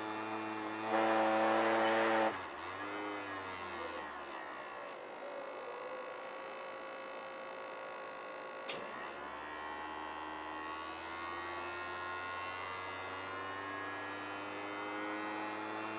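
Small brushed DC motor running on a 555-timer PWM speed controller, its hum changing pitch as the speed is turned up and down. It jumps higher and louder about a second in, drops, swells and falls once more, then after a click about halfway creeps slowly upward. The PWM buzz is gone, because a smoothing capacitor has been added to the motor supply.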